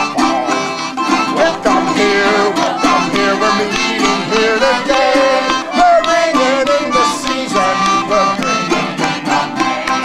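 Acoustic folk music played on string instruments, plucked and bowed.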